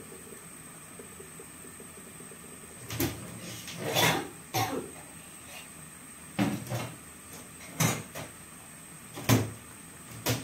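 Thick coconut-milk gulai boiling in a wok, with bubbles plopping at irregular intervals a second or so apart over a steady low hiss.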